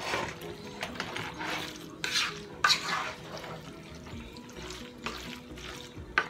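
Wooden spoon stirring thick macaroni and cheese in a pot, in several separate strokes, with a sharper one about two and a half seconds in.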